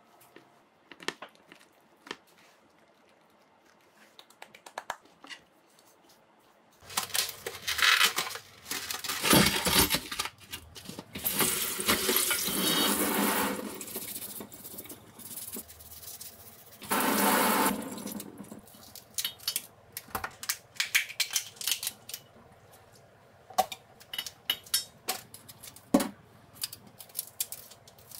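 Tap water running in spells into a stainless steel sink and bowl while a flower crab is scrubbed with a brush, after a few seconds of faint ticks and rustles of plastic wrap. Sharp clicks come near the end as kitchen scissors cut into the crab shell.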